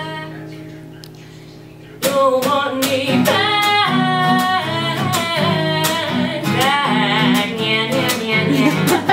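A woman sings live to her own strummed acoustic guitar. For the first two seconds only a quieter, fading chord rings; then the strumming and singing start suddenly and loudly.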